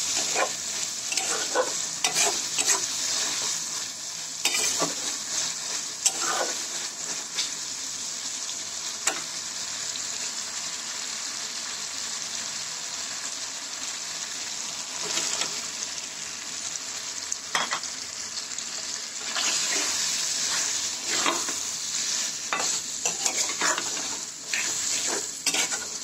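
Fish, tomato, onion and spice masala sizzling in hot oil in a metal karai, with a steady frying hiss. A metal spatula scrapes and clinks against the pan in bouts as the curry is stirred.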